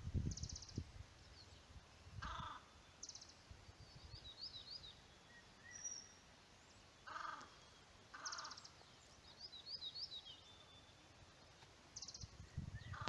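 A group of brown parrotbills calling. Short harsh calls and high rattling trills come every few seconds, with faint chirps between them.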